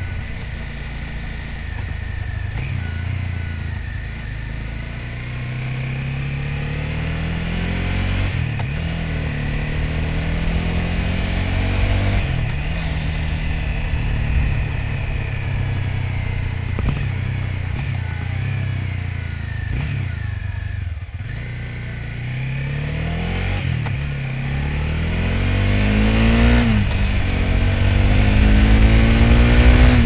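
Honda CB300F's single-cylinder engine heard from the rider's seat under way, its pitch climbing and dropping back several times as it goes through the gears. It eases off about two-thirds of the way in, then revs up to its loudest near the end.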